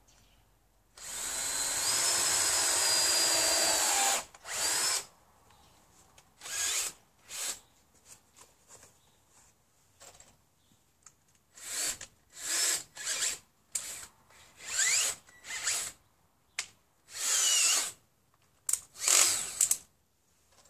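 Cordless drill runs steadily for about three seconds, then is run in a string of short bursts, the motor pitch sliding up and down as it spins up and stops.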